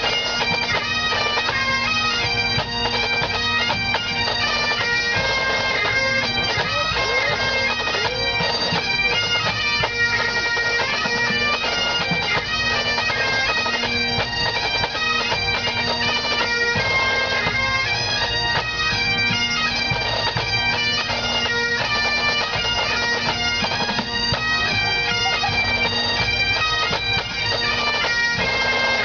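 Pipe band playing: Great Highland bagpipes, their drones holding one steady note under the chanter melody, with snare, tenor and bass drums.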